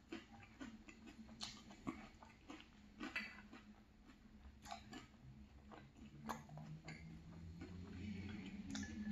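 Spoon clicking and tapping against a glass bowl as soggy cereal and milk are stirred and scooped: faint, scattered clicks, about one or two a second. A low hum builds up in the last few seconds.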